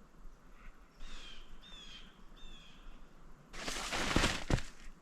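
A bird calls three times in short notes with a bending pitch. Then comes a loud burst of rustling and crashing, with a couple of dull thumps, for about a second.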